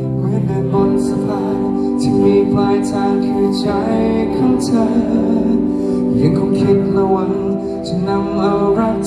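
Live pop-rock band playing a slow song with a man singing lead through the PA, picked up on a phone mic, with sharp cymbal-like hits about once a second.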